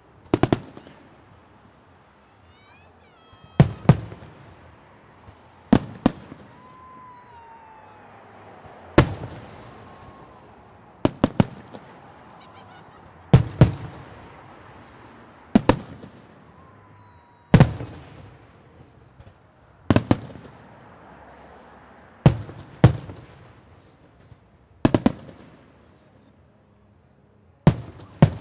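Aerial fireworks shells bursting in a steady series of sharp booms, roughly one every two seconds, some doubled, each trailing off in a brief rumble and crackle. A few faint gliding whistles sound between the bursts.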